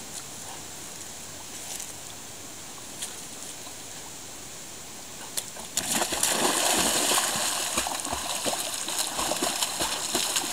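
A dog plunging into a pond with a sudden splash about six seconds in, then continuous splashing and sloshing of water as it swims. Before that, only faint outdoor background.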